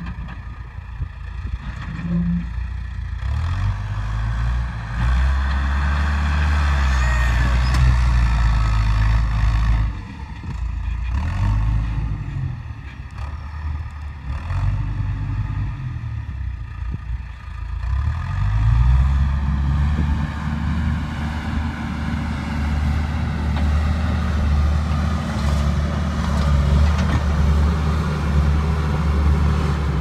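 John Deere 310E backhoe's diesel engine running under load, its revs rising and falling as it works. The revs drop for a few seconds about a third of the way through, then climb again and hold high.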